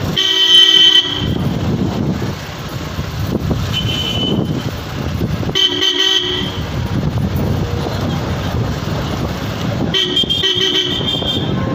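Vehicle horn honking three times, each blast about a second long and some five seconds apart, over steady traffic and engine noise.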